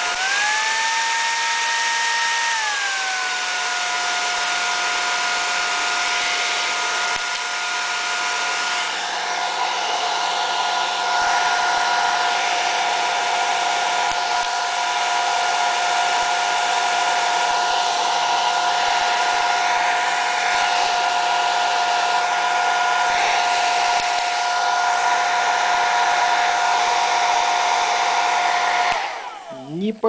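Bosch Quattro Ion PHD5767 hair dryer running: its fan motor gives a steady whine over the hiss of blown air. Just after the start the whine rises in pitch for about two seconds as the speed switch is moved, then drops back and holds steady. It stops about a second before the end, as the dryer is switched off.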